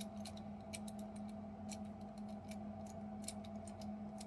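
Number wheels of a Master Lock 875 combination padlock being turned by thumb: a run of light, irregular clicks, several a second, as the dials step through their numbers while the combination is scrambled.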